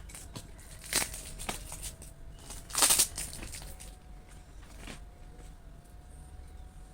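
Packaging rustling and crinkling as gift items are handled, with a few short taps and crackles; the loudest crinkle comes about three seconds in.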